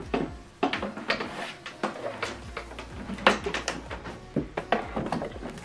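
Handling noises as an HDMI cable is pulled across a table and the back of a TV is reached: irregular light knocks, clicks and rustles, a few a second.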